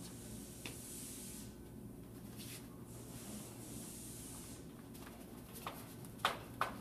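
Retractable banner stand being handled: the banner sheet rubs and rustles against hands and pole in soft hissy stretches, then three short sharp clicks near the end, the second the loudest.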